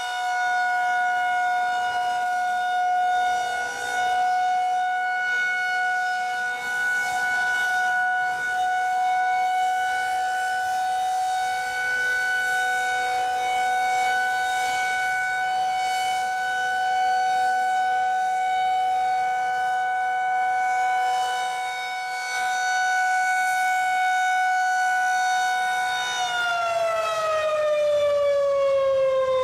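Federal Signal 2001-130 rotating outdoor warning siren sounding the steady Alert tone of a siren test. Near the end it begins to wind down, its pitch falling.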